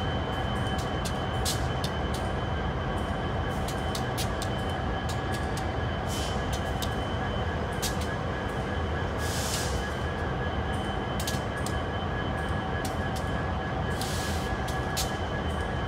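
Union Pacific intermodal freight cars rolling slowly past: a steady rumble with frequent sharp clicks and clanks of wheels and couplers, thin steady high tones from the wheels, and two short hissing bursts, one about midway and one near the end.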